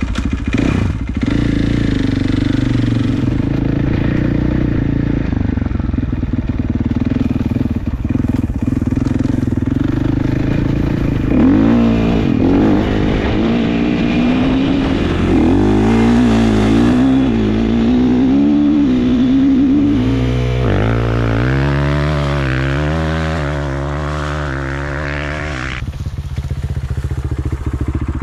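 Gas Gas MC 450 motocross bike's four-stroke single-cylinder engine being ridden, running steadily at first, then revving up and down over and over, easing off near the end. It is a test ride after repair, and the owner says the engine runs nicely and pulls hard.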